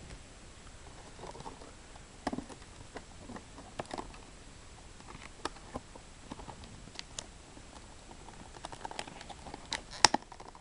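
Clear hard-plastic blister packaging handled and pulled apart by hand: scattered light clicks, crackles and taps of the plastic, with a cluster of sharp, louder clicks near the end.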